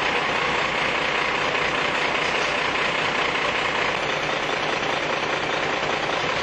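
Diesel engine idling steadily.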